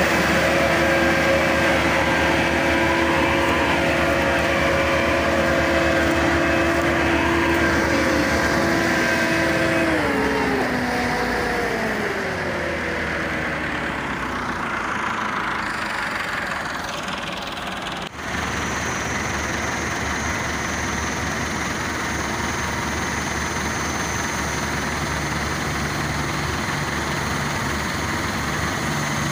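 Massey Ferguson 385 tractor diesel engine running steadily under load, hauling a heavily loaded sugarcane trolley. About ten seconds in, the engine note falls away in pitch. After an abrupt break a little past halfway, a steady engine drone carries on.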